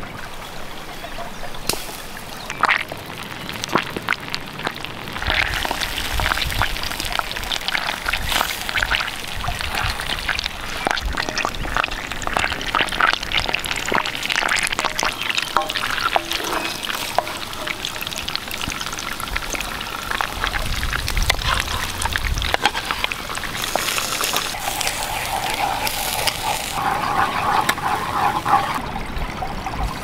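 Butter melting and sizzling in a steel frying pan over campfire coals, with many sharp crackles and pops that grow denser after the first few seconds.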